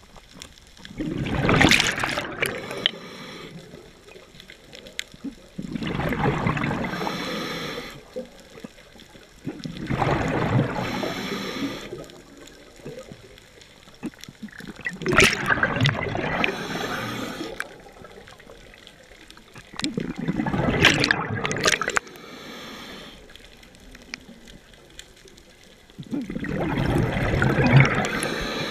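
A scuba diver breathing through a regulator underwater: six exhalations about every four to five seconds, each a rush of bubbles lasting about two seconds, with quieter gaps between.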